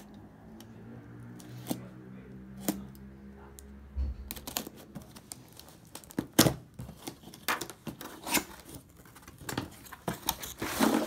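Snap-off utility knife slicing the packing tape along a cardboard box's seam, with scattered clicks and scrapes. Near the end the cardboard flaps are pulled open, a denser burst of cardboard scraping and rustling.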